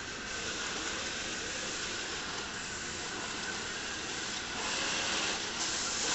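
Roomba robot vacuums running as they drive about, a steady whirring hiss that swells a little about five seconds in.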